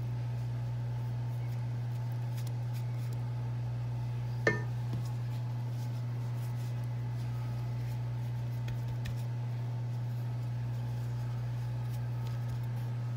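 A steady low hum runs under faint handling of phyllo pastry being spread with cream and folded, with one sharp click about four and a half seconds in.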